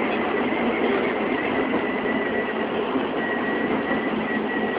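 Tobu 10050 series electric train in motion, heard from inside the front car: a steady rumble of wheels and running gear, with a thin high tone wavering over it.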